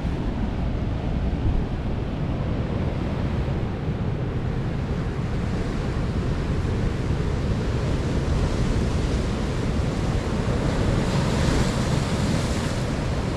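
Ocean surf breaking and washing over rocks, with wind buffeting the microphone. A brighter, fuller wash of surf comes near the end.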